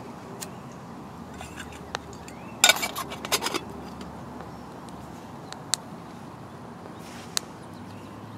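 Small wood fire crackling inside a Bushbox Ultralight twig stove: scattered sharp pops and ticks, with a quick run of loud crackles about three seconds in.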